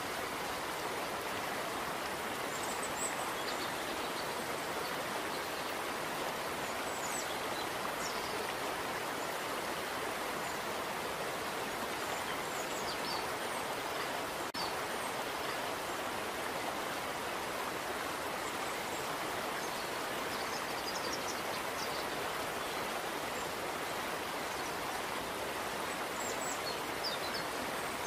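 Steady rushing of running water, like a stream, with faint short bird chirps a few times.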